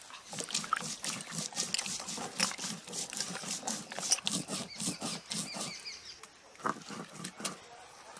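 Peeled taro corms being washed by hand in water on a steel plate: quick, repeated wet rubbing and sloshing, thinning out about six seconds in.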